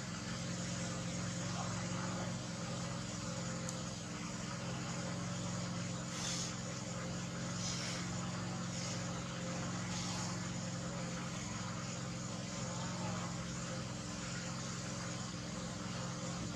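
A steady low motor hum with an even hiss over it, unchanging throughout, with a few faint brief whooshes between about six and ten seconds in.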